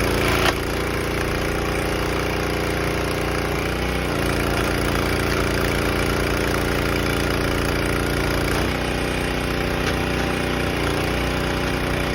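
Engine of a Champion 25-ton hydraulic log splitter running steadily, its note shifting about four seconds in and again near nine seconds. A sharp knock sounds about half a second in.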